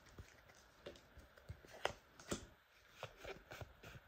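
Faint, irregular clicks and soft rustles of Pokémon trading cards being slid out of a freshly opened foil booster pack and fanned in the hands.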